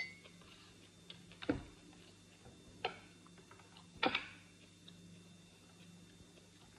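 Hands handling food on a plate: a few scattered sharp clicks and knocks about a second apart, the loudest about four seconds in, over a faint steady low hum.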